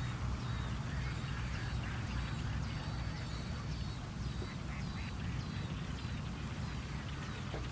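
A bird at the nest giving a series of short, high, slightly falling chirps, about two a second, over a low steady rumble.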